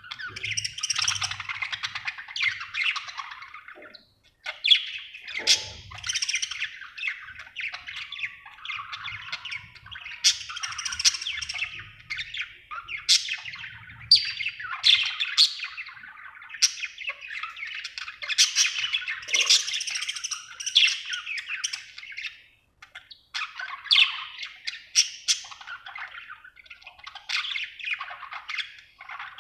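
Budgerigar chattering and warbling almost without a break: a long run of rapid chirps and warbles with sharp, high clicks and squeaks mixed in, pausing briefly twice.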